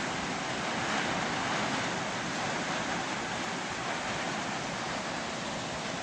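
Rain falling steadily: a constant even hiss with no breaks.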